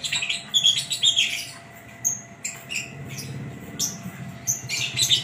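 Lovebird chattering in fast runs of sharp, high chirps and squawks, broken by short pauses: the long chatter song that Indonesian keepers call "ngekek".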